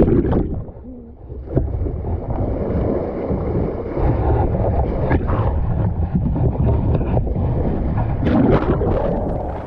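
Water rushing and splashing along a sailboat's bow as it moves through the sea, with wind buffeting the microphone. The sound drops briefly about a second in, then runs on steadily.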